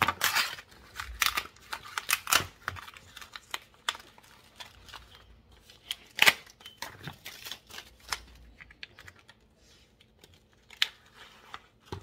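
Kitchen handling sounds: scattered clicks, taps and brief rustles as food packaging and utensils are handled over a glass-top electric stove, with a sharp knock about six seconds in.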